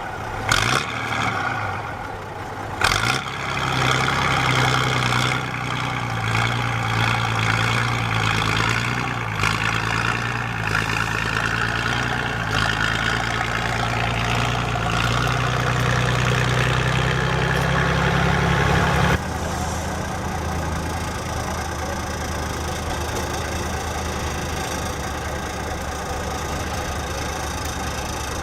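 Mercedes Unimog diesel engine working hard at fairly steady revs that creep slightly upward. About two-thirds of the way through the revs drop suddenly and the engine settles to a lower, steady idle. A few sharp knocks come near the start.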